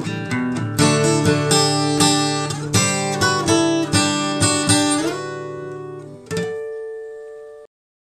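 Short jingle on acoustic guitar: rhythmic strummed chords, then a final chord about six seconds in that rings out and cuts off abruptly near the end.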